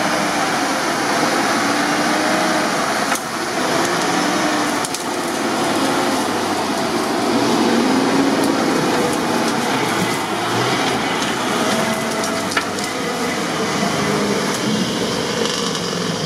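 GAZ-66 army truck's engine working under load, its note rising and falling as the truck drives close past through mud and on into floodwater. A few sharp cracks, about 3 and 5 seconds in and again later, like branches snapping against the truck.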